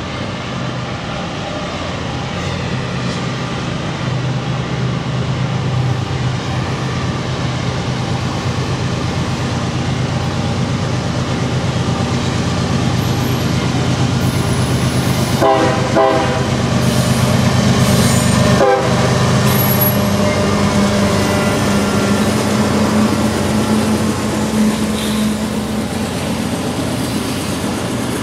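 A CSX manifest freight train's diesel-electric locomotives running, growing louder as they approach and pass, with short horn sounds about halfway through. After that, the freight cars roll by with the steady sound of wheels on rail.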